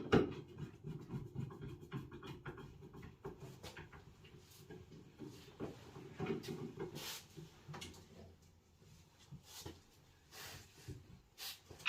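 Scattered light clicks, taps and knocks of hands and tools working on a Baxi boiler's parts while its faulty fan is replaced.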